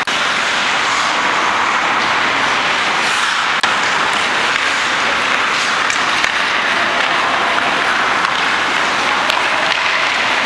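Steady hiss of ice-rink play, skate blades scraping the ice, with a few sharp clicks, the loudest about three and a half seconds in.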